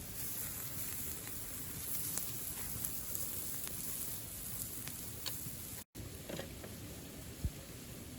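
Wood fire crackling, with scattered sharp pops over a steady hiss. The sound drops out briefly about six seconds in, and there is a soft low thump near the end.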